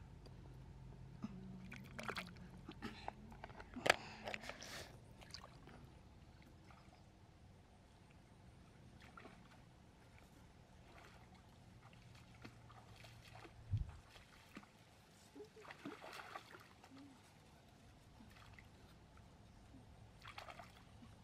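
Faint sloshing and small splashes of shallow stream water as someone wades and reaches into it to pick snails from among the rocks. The splashes come in short scattered bursts, with a dull knock about two-thirds of the way through.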